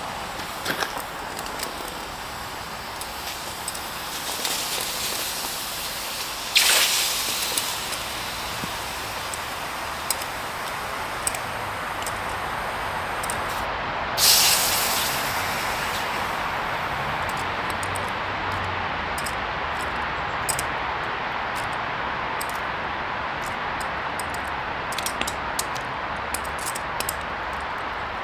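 Steady hiss of a gas-fired melting furnace's burner. Two sudden louder hissing bursts come about six and a half and fourteen seconds in, each fading over a second or so, with scattered light metallic clicks in the second half.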